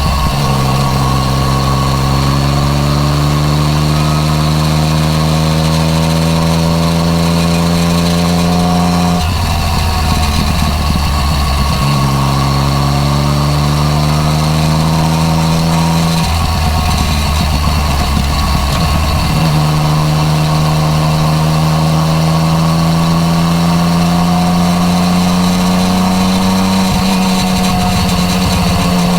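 Yamaha MT-09 Tracer's inline-three engine through its Akrapovič exhaust, pulling steadily with the revs slowly climbing. Twice the even note gives way for a few seconds to a rough, rattling sound, then the steady pull comes back.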